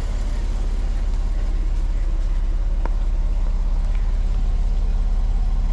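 Jeep Wrangler's engine running steadily at low revs, a deep even exhaust pulse, as the Jeep crawls slowly through a deep rut. A single short click comes about three seconds in.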